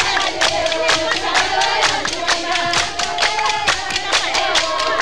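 Group singing over a fast, steady beat of clapping or percussion.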